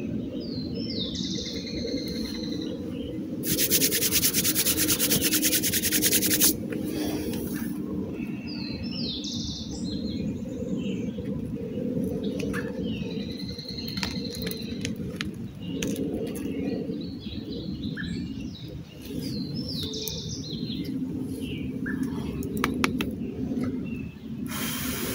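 A songbird sings the same short chirping phrase again and again, every few seconds, over a steady low rumble. About three and a half seconds in, a loud rough rasping noise lasts about three seconds. Near the end there are a few sharp clicks.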